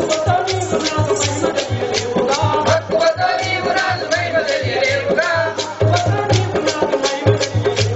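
Telugu folk-theatre music: a quick, steady rhythm of clicks from chirutalu wooden clappers over a regular drum beat, with a wavering melody line on top.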